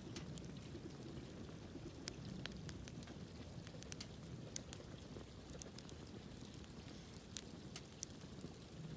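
Wood campfire crackling: irregular sharp pops and snaps over a low, steady rumble.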